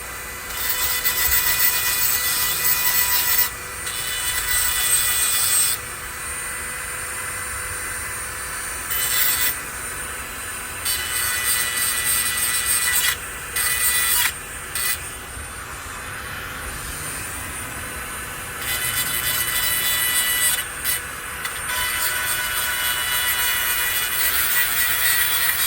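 Dremel-style rotary tool whining at steady speed while its grinding stone is pressed repeatedly against hedge trimmer blade teeth, each contact adding a hissing grind of metal being sharpened that lasts from under a second to a few seconds.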